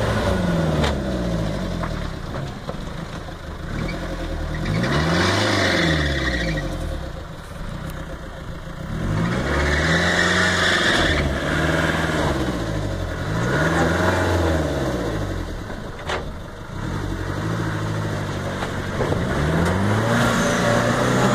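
Land Rover Defender engine revving up and down over and over, its pitch rising and falling in repeated swells, with a sharp knock about two-thirds of the way through.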